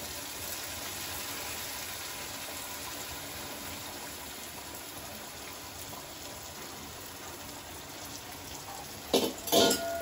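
Hot milk and water poured in a steady stream from a steel pot into a hot pan of roasted semolina and ghee, a soft continuous pouring noise. A few sharp clatters near the end.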